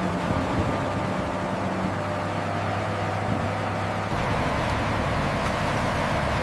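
Heavy machinery running steadily, a low engine drone with a noisy hiss over it; its tone shifts about four seconds in.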